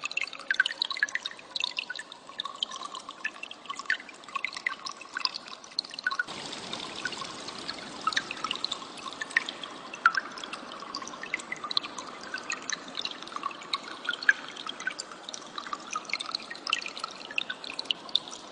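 Cililin songbird recording: rapid, short high chirps and ticks over a steady bed of trickling water. About six seconds in, the water hiss turns louder and fuller.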